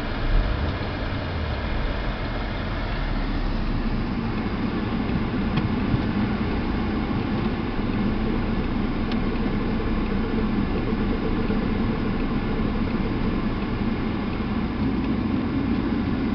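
2008 Audi A3 running at a steady idle, with the air conditioning on. A brief low thump about half a second in.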